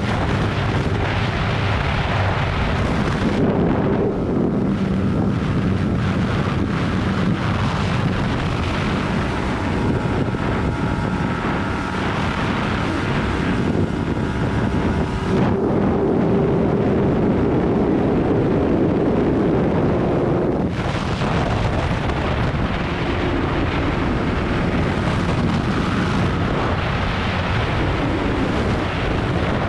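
Yamaha YZF-R15's single-cylinder engine running at road speed under heavy wind noise on the microphone, with the engine note shifting a few times.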